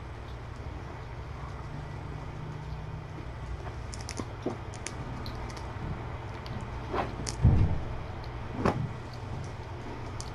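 Steady low room hum, with a few faint clicks and knocks and one louder dull thump about seven and a half seconds in, as a person moves about the kitten room setting down bowls.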